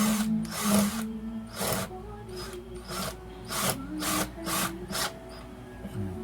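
Makita cordless impact drill run in short trigger bursts, about eight quick spurts of the motor at uneven intervals. Background music plays underneath.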